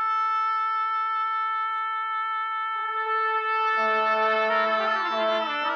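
Orchestral brass sounding the tuning A: one long held note, which a second brass note joins about three seconds in, with more instruments entering on other notes from about four seconds in as the orchestra tunes up.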